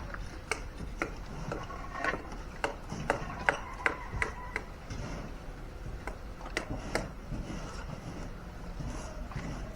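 A run of sharp knocks, about two a second for the first four and a half seconds, then two more about seven seconds in, over the steady background of a building site.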